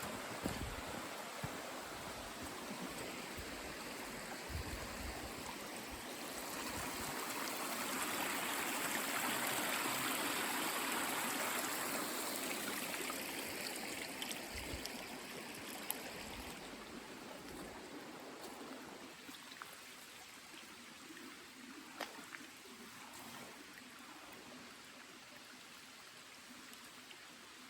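Running water of a stream, a steady rushing that swells to its loudest about ten seconds in and then slowly fades away, with a few faint clicks in the second half.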